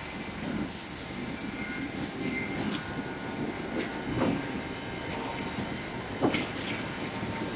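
Automatic multi-blade rip saw running steadily while slabs of wood are fed through it, its blades ripping the wood into strips. Sharp wooden knocks and clatter stand out about 4 seconds in and again about 6 seconds in.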